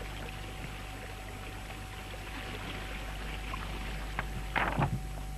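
Water washing past the hulls of a small sailing catamaran under way, a steady hiss, with a brief louder sound about four and a half seconds in.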